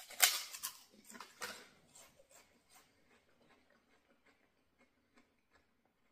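Crunching bites into a crisp poppadom, loudest in the first second and a half, then thinning into quieter chewing crackles that die away after about three seconds.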